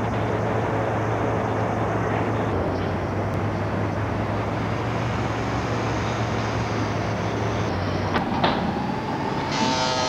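Steady hiss and low hum of old VHS camcorder audio, with a couple of clicks about eight seconds in and a brief buzzing tone near the end.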